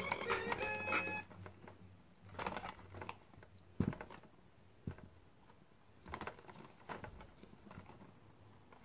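A plastic electronic baby activity table sounding the last few tinny electronic notes of its tune, which stop about a second in. Then a few short, scattered taps and knocks as the toy's plastic buttons are handled.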